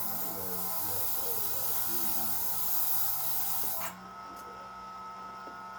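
A steady, strong hiss that cuts off suddenly about four seconds in, with faint voices underneath.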